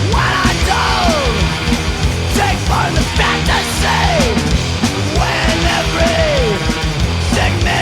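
Loud hardcore punk music from a full band, with repeated falling swoops in pitch over the top.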